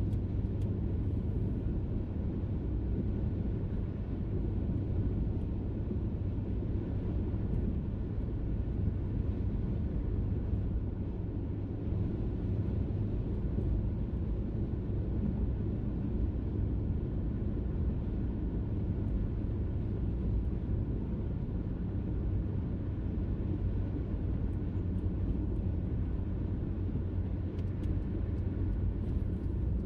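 Steady road and engine noise inside a car's cabin while cruising on a highway: an even low rumble of tyres and engine.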